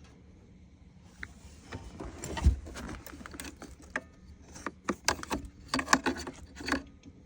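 Irregular clicks, knocks and rattles of hands handling plastic dashboard parts and clips, with one heavier thump about two and a half seconds in.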